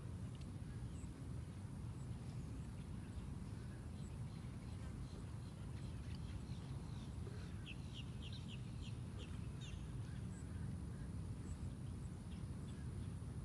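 Birds chirping: a quick run of short, high notes about halfway through and a few scattered notes elsewhere, over a steady low outdoor rumble.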